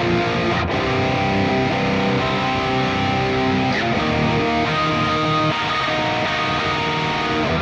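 Ibanez S2020X electric guitar playing sustained, ringing notes, with a change of notes about four seconds in.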